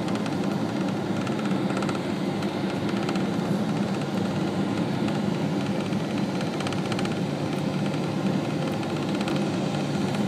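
Steady cabin noise inside a Boeing 777 on approach to land: the turbofan engines and rushing air, an even, low-pitched hum that holds at one level.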